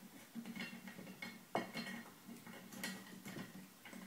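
Faint, irregular small metallic clicks and scrapes as a brass lamp socket is turned by hand to tighten it onto the lamp's threaded post, the sharpest click about a second and a half in.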